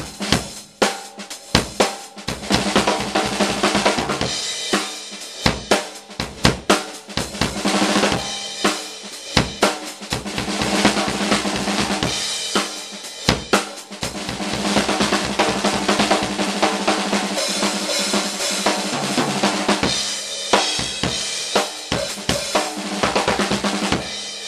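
Drum kit played hard and fast: a Mapex Black Panther Sledgehammer snare drum with Premier Artist Maple toms and bass drum, under ringing crashes and hi-hat from Paiste 2002 cymbals.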